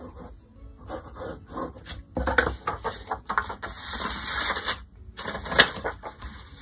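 A pencil scratching on paper in short strokes, then louder rustling and handling of the paper sheet from about two seconds in.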